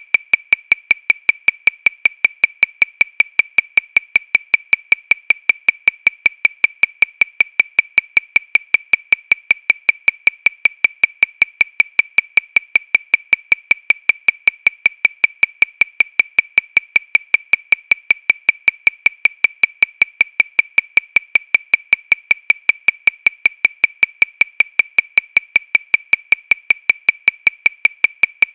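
Metronome clicking steadily at 314 beats per minute, about five short, high clicks a second, all evenly spaced and equally loud with no accented beat.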